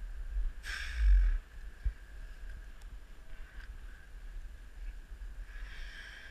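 Low wind rumble on the camera microphone, louder about a second in, with two short rustles of braided climbing rope and webbing being handled close to the microphone: one about a second in and one near the end.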